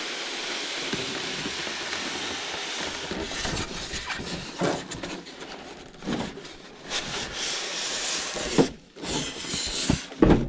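Cardboard and foam packaging rubbing and scraping as a foam insert is worked out of a long cardboard box, with a few knocks near the end.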